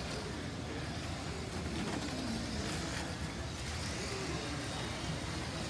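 Electric slot cars whirring around a large commercial slot-car track, over a steady background din.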